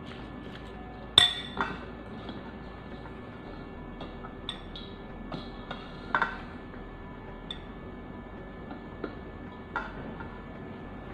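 Steel utensils clinking sharply against a glass mixing bowl, about six clinks with the loudest about a second in and another strong one about six seconds in, as cut raw mango pieces are tipped into the pickle masala.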